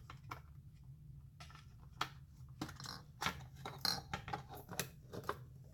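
Light clicks and clatter of small hard parts being handled and pressed into place while a vacuum pump's top cover is reassembled, sparse at first and then a quick run of knocks from about two seconds in.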